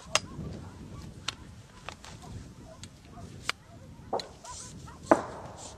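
A handful of sharp knocks and clicks close to the microphone, spread unevenly, the loudest about five seconds in with a short ring after it, over low rumbling handling noise.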